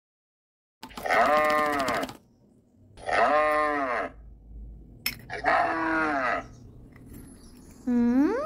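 Three long bleats, each about a second long and arching up then down in pitch, spaced about a second apart. A shorter call rising steeply in pitch comes right at the end.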